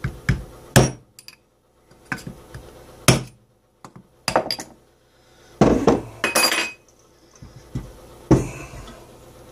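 Hammer blows knocking a crankshaft oil seal out of an MZ ETZ 250 crankcase: sharp irregular metallic knocks a second or two apart, with a quick run of several blows about halfway through.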